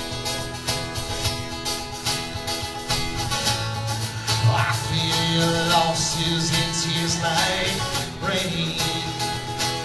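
Live band playing a song with a steady drum beat, guitar and a voice singing at times.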